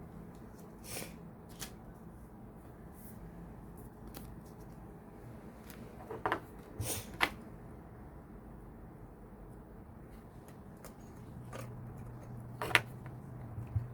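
Packaging and a plastic lightstick being handled: scattered light clicks and rustles, with a few sharper plastic clicks midway and near the end, over a faint low hum.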